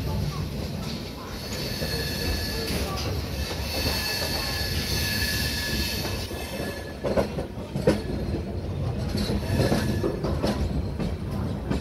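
Indian Railways passenger train rolling through a junction yard: steady rumble of the coach wheels on the track, with a high-pitched wheel squeal from about a second and a half in to about six and a half seconds. A few sharp clacks of the wheels crossing points and rail joints follow near the middle.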